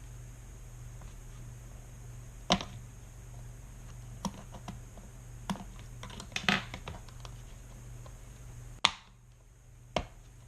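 Scattered light plastic clicks and scrapes, about eight over several seconds with a small cluster midway, as a small flathead screwdriver prises at the internal cable connector of an opened HHKB Topre keyboard. A low steady hum lies underneath until a sharp click near the end.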